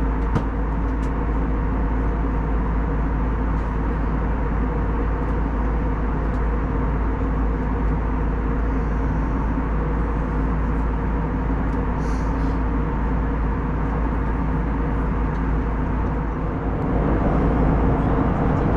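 Steady cabin drone of an Airbus A321neo at cruise: engine and airflow noise heard inside the cabin, with a few faint ticks. It grows a little louder for the last couple of seconds.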